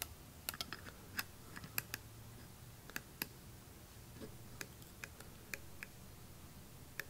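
Irregular light metallic clicks and taps, closer together in the first two seconds: retaining ring pliers working a retaining ring into its groove at the top of a Tormach power drawbar's pneumatic cylinder.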